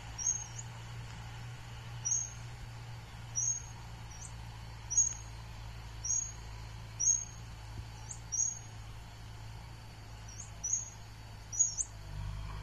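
A bird repeating a short, sharp, high chirp about once a second, over the faint steady low drone of a distant tractor engine working the field.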